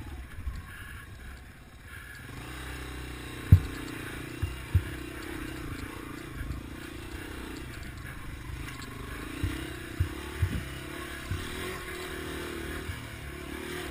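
Yamaha TW200's small single-cylinder four-stroke engine running at low speed, its pitch rising and falling with the throttle. Sharp knocks and clatter come from the bike jolting over rock ledges, the loudest a little over three seconds in, with more around five and ten seconds in.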